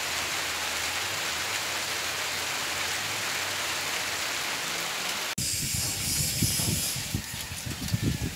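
A steady hiss that cuts off abruptly about five seconds in. Irregular low thumps and rumbles follow.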